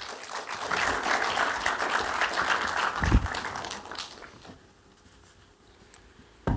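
Audience applauding, fading away after about four seconds. A short low thump comes about three seconds in, and another near the end.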